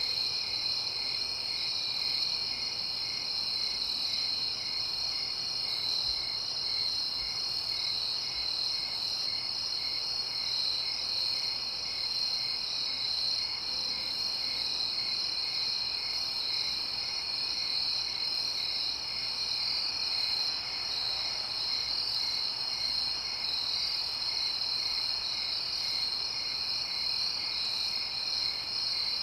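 Night chorus of crickets trilling continuously, with a second, lower insect call pulsing about twice a second underneath.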